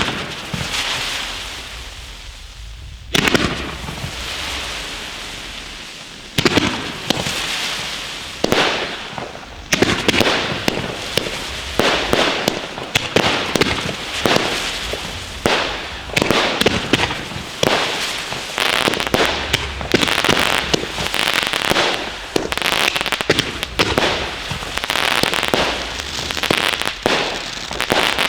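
Bavaria Special Thunder 3-inch F4 fireworks going off: a loud bang, then several seconds of dense crackling, repeated about every three seconds. From about a third of the way in, the bangs come in quick succession over continuous crackle.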